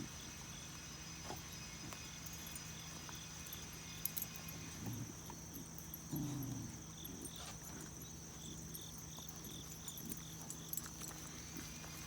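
Insects chirping: a steady high drone with trains of short, evenly spaced chirps, about four a second. About six seconds in comes a brief low growl.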